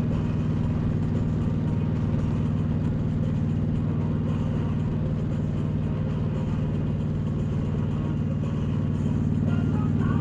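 Motorcycle engine running at a steady cruising speed, holding one even pitch, under a steady rush of wind and road noise.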